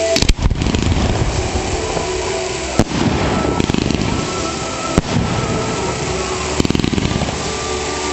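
Fireworks going off: sharp bangs about a third of a second in, near three seconds and at five seconds, and a quick run of crackles near seven seconds, over a steady rushing background.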